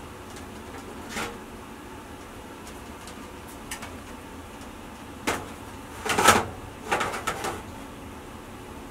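Metal clanks and clatter of a baking pan and the stainless steel oven attachment of a Cubic Mini wood stove being handled as the pan goes into the oven. A single knock comes about a second in, then a burst of several clanks in the second half, the loudest about six seconds in.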